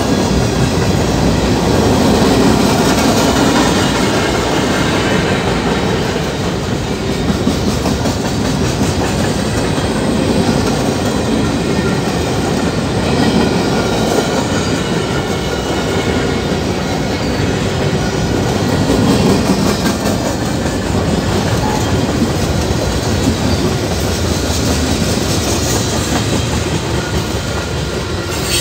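Freight cars of a long mixed freight train rolling past steadily at about 30 mph, a continuous loud noise of wheels on rail.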